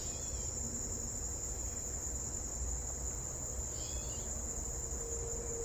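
Steady, high-pitched chorus of insects trilling without a break. Two brief bird chirps come over it, one at the very start and one about four seconds in.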